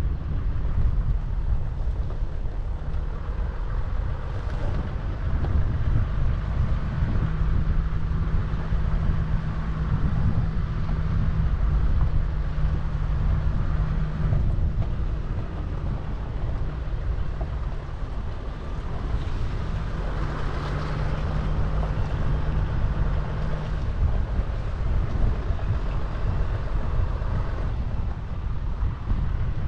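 A 4x4 vehicle on the move: low engine rumble mixed with wind buffeting the microphone, with a steady engine hum that comes in twice as the revs are held.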